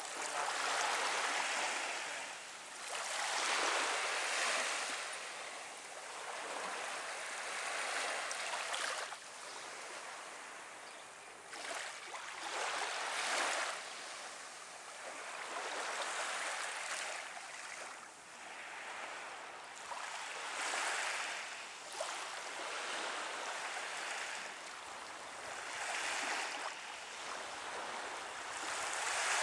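Small waves washing up on a sandy beach, each one swelling and falling away every few seconds.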